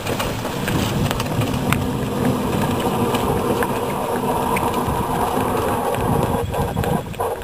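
Steady rushing and rumbling of wind across the microphone.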